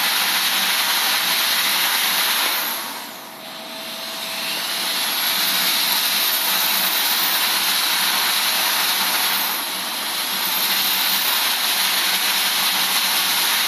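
Loud, steady rushing noise of a windy thunderstorm, easing for a moment about three seconds in and slightly again around ten seconds.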